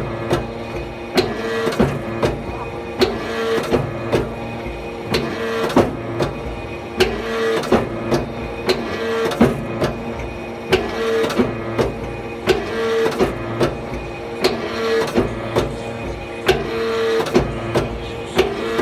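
Hydraulic forging press cycling rapidly: a steady pump hum whose tone swells about once a second, with sharp knocks about twice a second.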